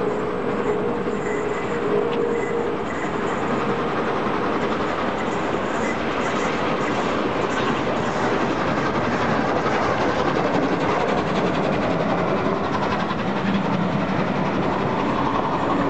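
Peppercorn A1 Pacific steam locomotive 60163 Tornado running through the station at speed with its passenger train; a steady rush of train noise that grows a little louder as the coaches' wheels run past on the track.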